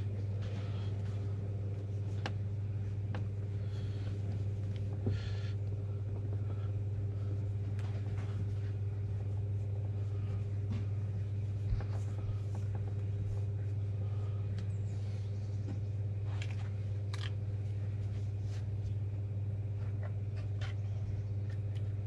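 A steady low machine hum, with faint rustling and a few light ticks over it.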